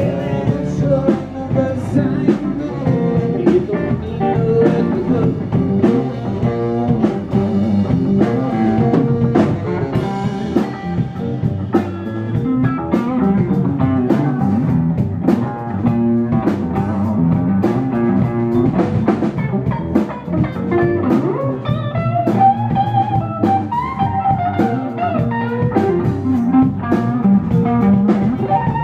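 Live blues band playing: electric guitar, electric bass, drum kit and saxophone, with a steady drum beat. In the last third a lead line slides up and down above the band.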